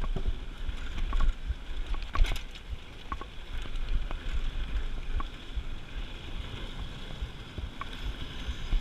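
Mountain bike riding fast over a wooden plank boardwalk: a steady low rumble from the tyres and the bike, with scattered sharp clicks and knocks as the bike rattles over the planks.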